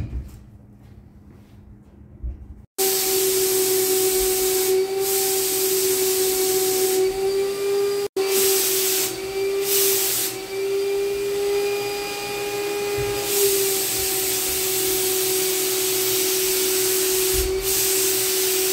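Paint spray gun spraying: a loud, steady hiss of air and paint over a steady whine of its air supply. It starts suddenly a few seconds in and breaks off for an instant about eight seconds in.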